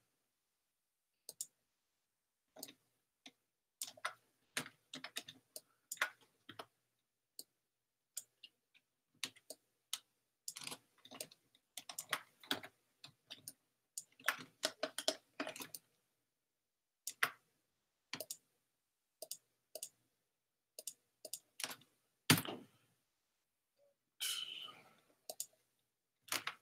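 Computer keyboard keystrokes and mouse clicks in irregular clusters of light taps, with one louder knock about 22 seconds in.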